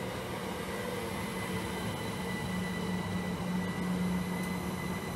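GWR Class 387 Electrostar electric multiple unit passing along the platform: steady wheel-and-rail rumble with a low electric hum from the traction equipment that swells in the middle, and faint steady higher whines.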